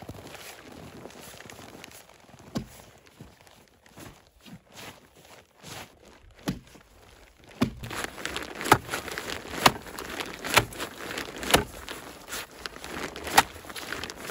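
Boots crunching over snow-covered lake ice, then from about halfway a steel spud bar (a heavy ice chisel) is driven down onto the ice about once a second with sharp chunking impacts, testing the ice for soft spots.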